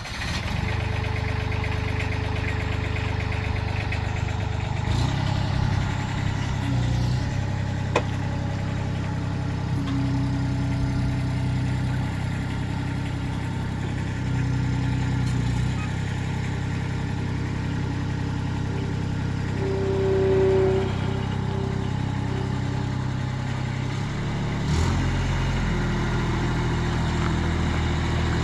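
Bobcat 553 skid steer's diesel engine running steadily near idle, its pitch shifting a few times.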